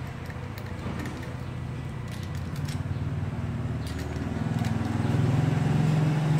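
A low, steady motor hum that grows louder from about halfway through, with a few faint light clicks of stainless-steel clamp fittings being handled.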